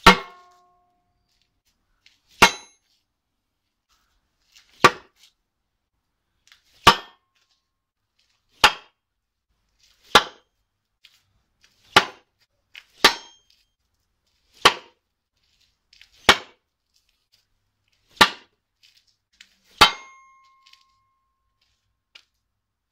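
Bat-shaped throwing star cut from table-saw-blade steel striking a wooden board, again and again: twelve sharp hits about every one and a half to two seconds, several with a brief metallic ring.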